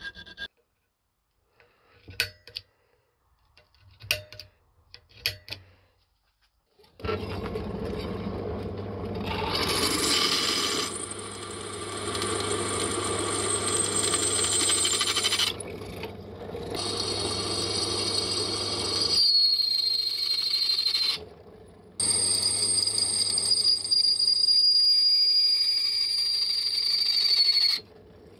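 Bench drill press drilling holes through a steel knife blank cut from an old saw blade, starting about seven seconds in after a few light scrapes. The motor runs with a steady hum, dipping briefly twice, and the bit cutting the steel gives a high steady whine before it stops near the end.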